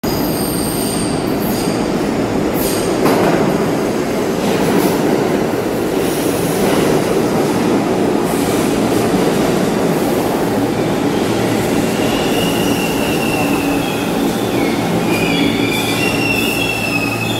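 R46 subway train pulling into an underground station, its cars rumbling past steadily with a few clacks of wheels over rail joints in the first seconds. From about twelve seconds in a high, wavering squeal of wheels and brakes joins in as the train slows.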